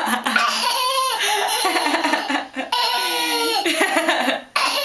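Toddler's belly laughter, high-pitched and in long bouts, with short breaks for breath about halfway through and near the end.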